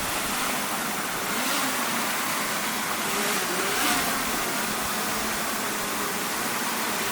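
Steady rushing of a waterfall and its stream: an even, unbroken hiss of falling water.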